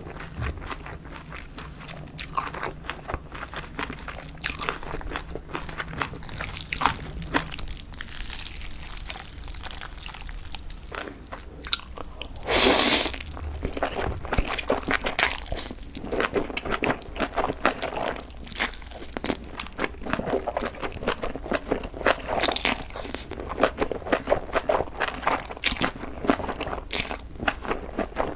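Close-up eating sounds: food being bitten and chewed with many irregular, crisp crunches. A single louder, brief noisy burst comes a little under halfway through.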